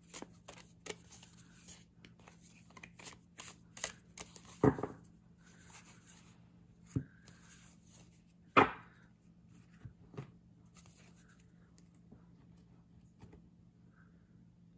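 A deck of thin, paper-like tarot cards being shuffled by hand, a quick run of soft flicks and slaps. Two louder thumps come about four and a half and eight and a half seconds in. The shuffling stops about eleven seconds in.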